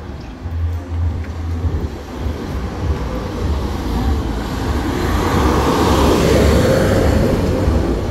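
Street traffic: a motor vehicle's noise swells to a peak about six to seven seconds in and then eases, over a steady low rumble.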